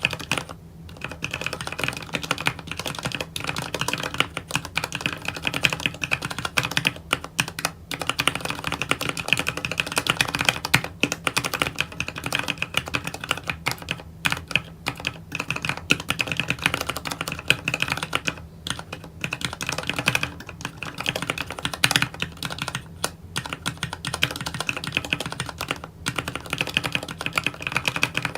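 Typing on a JD45 45% mechanical keyboard with Cherry MX Speed Silver linear switches: a continuous stream of key presses with a few brief pauses.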